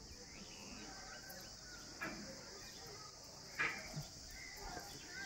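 Faint, steady high-pitched insect chorus, with a few brief sounds over it; the sharpest comes about three and a half seconds in.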